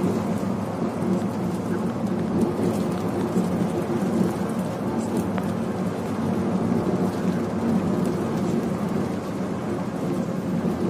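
Cabin sound of a Volvo B11R coach cruising at highway speed: the steady drone of its 11-litre six-cylinder diesel blended with road and wind noise, with scattered light rattles.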